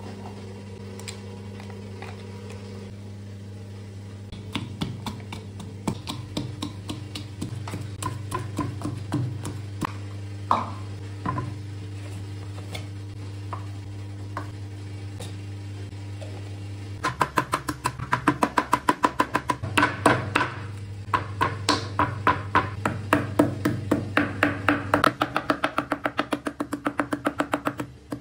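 Background music with steady held tones and scattered clicks and knocks of kitchen handling. Partway through, rapid regular strikes begin, about four a second, as ginger is struck on a wooden cutting board.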